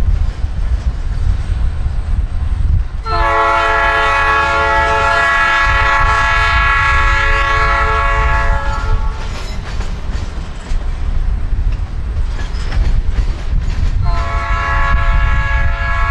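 Freight train of covered hopper cars rolling past with a steady low rumble. Over it, a diesel locomotive horn sounds a long multi-note chord from about three seconds in for around six seconds, then starts again near the end.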